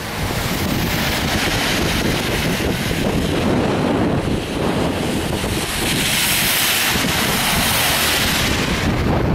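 Wind buffeting the microphone, with the hiss of car tyres on a wet road swelling as cars pass, loudest in the second half.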